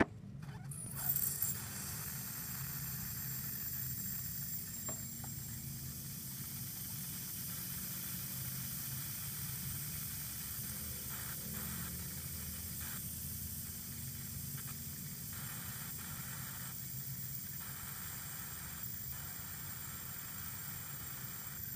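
Steady hiss of air escaping through the Peugeot 406's brass coolant bleed screw, which has just been loosened, starting with a short knock about a second in.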